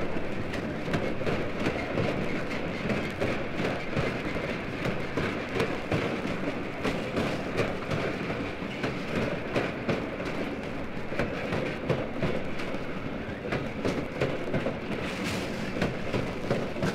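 A steam locomotive and its train working on the rails: a steady, dense rumble of exhaust and rolling cars with many short clicks and knocks, and no whistle.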